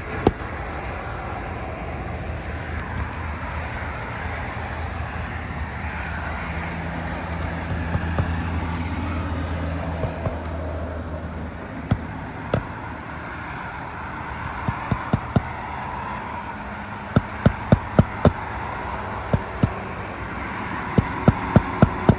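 Hammer driving roofing nails to refasten an asphalt shingle: a few single strikes, then quick runs of several strikes a second near the end. Under them runs a steady vehicle engine drone, strongest in the first half.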